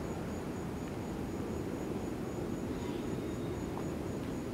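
An insect chirping steadily in a high, even pulse about four times a second, over a steady low rumbling noise.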